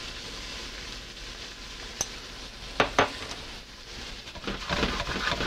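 Chicken livers, shallots and garlic sizzling steadily in hot olive oil in a nonstick skillet. A few sharp knocks about two and three seconds in as the spice jar and knife are set down on the counter.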